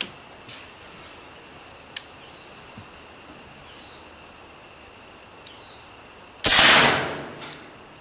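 AirForce Texan .457-caliber pre-charged pneumatic air rifle firing one shot about six and a half seconds in, a sudden loud crack that fades over most of a second. A few light clicks come before it.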